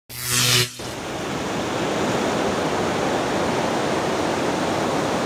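Ocean surf breaking on a rocky shore: a steady, even rushing hiss. It is preceded by a brief, loud pitched sound in the first second.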